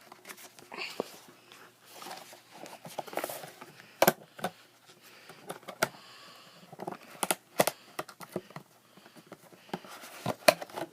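Packaging being handled and opened by hand: scattered sharp clicks and taps with light rustling at irregular intervals.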